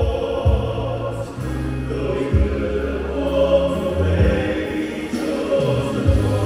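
Men's choir singing in parts, holding chords that change every second or two.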